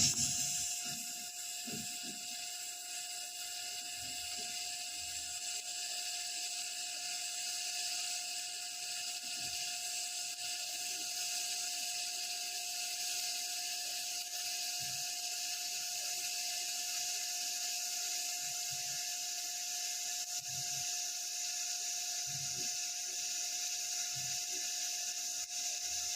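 Lift-start TIG welding arc from a Predator 5-in-1 inverter welder at about 100 amps on thin 1.2 mm steel tubing. A sharp click as the arc strikes is followed by a steady, even hiss that holds without a break.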